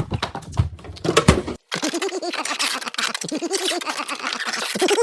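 Knocks and bumps of a refrigerator door being pushed and forced shut. After an abrupt cut, a quick run of short, high-pitched chirping notes repeats several times a second.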